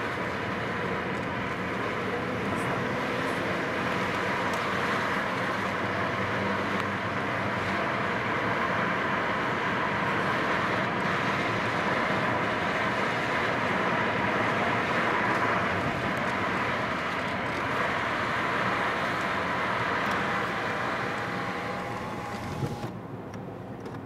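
Steady road noise of a moving car, a rushing of tyres and wind heard from inside the car. It fades and drops off about a second before the end.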